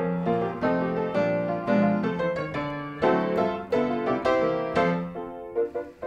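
Background piano music, a run of struck notes that dips in level near the end.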